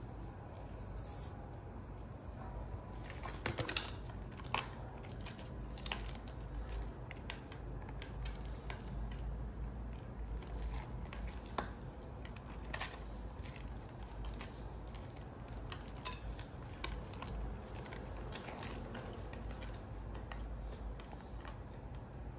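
Gold-tone metal chain strap of a Dior Caro Heart Pouch clinking in the hands: scattered light metallic clicks, the sharpest a few seconds in, over a low steady background hum.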